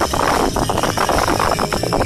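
Fireworks going off in a dense, continuous barrage of rapid bangs and crackles over a constant rumble.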